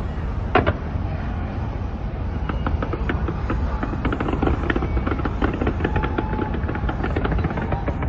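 Fireworks exploding: a sharp bang about half a second in over a continuous low rumble of booms, then dense rapid crackling from about two and a half seconds on.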